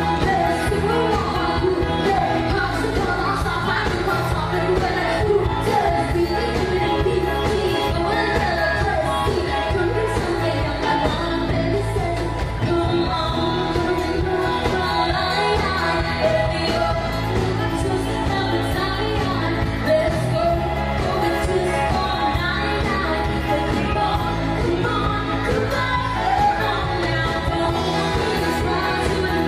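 Live pop band playing: a woman singing into a microphone over drums, bass guitar, keyboard and electric guitar, with a steady beat.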